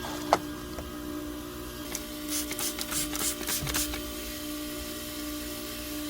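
A sharp click, then a quick run of about six short hissing sprays, as when the repaired air-conditioning condenser is being checked for leaks. A steady low hum runs underneath.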